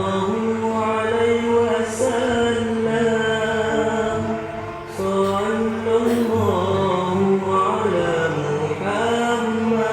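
Background music of a chanted mantra: a voice chanting in long held notes, with new phrases starting about two and five seconds in.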